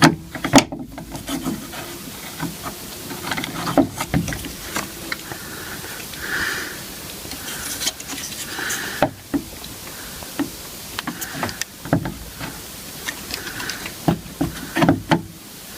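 Plastic door-trim parts of a Mini door being handled and fitted: scattered clicks, light knocks and rubbing, with a cluster of sharper clicks near the end.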